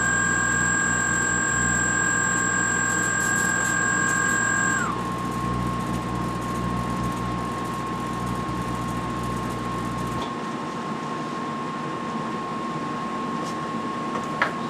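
A toy RC plane's small electric motor and propeller spin up with a rising whine, hold steady, and stop about five seconds in. Under it runs a low electrical hum from the magnetron's high-voltage supply, which cuts off about ten seconds in. A steady higher tone continues throughout, and there is a sharp click near the end.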